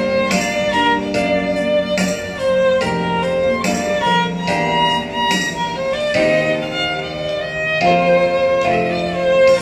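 Violin bowed in a slow melody of held notes, each lasting about half a second to a second.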